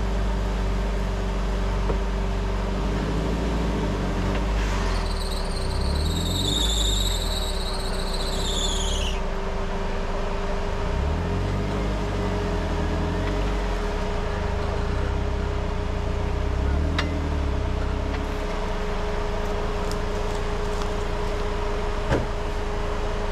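A lifted off-road 4x4 runs at low revs with a steady whine. About five seconds in, a high, wavering squeal lasts roughly four seconds.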